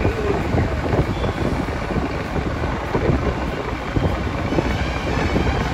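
Wind buffeting the microphone over steady traffic and road rumble, recorded from a vehicle moving along a street.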